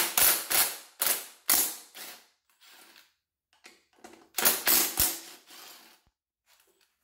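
Makita 18-volt cordless driver running bolts out of a Honda PL3 manual transmission case in short rattling bursts: about five in the first two seconds, then after a pause about four more. The bolts are being removed so the reverse gear and shaft assembly can be lifted out.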